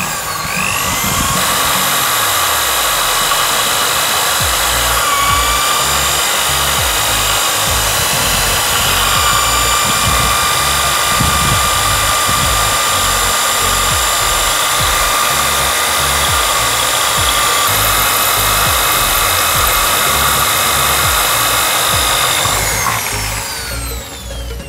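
Cordless drill boring out a rivet on a motorcycle clutch housing gear, running steadily under load. Its whine rises as it spins up at the start and winds down near the end.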